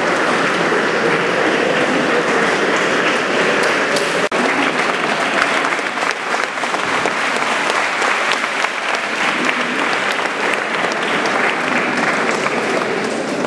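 An audience clapping steadily and continuously, a dense patter of many hands, broken only by a momentary dropout about four seconds in.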